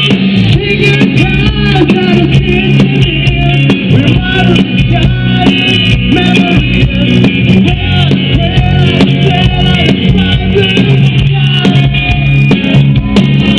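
Rock music with guitars and singing.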